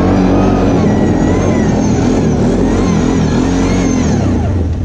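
ATV engine being ridden with the throttle worked, its pitch rising and falling repeatedly, then dropping as the throttle eases off near the end.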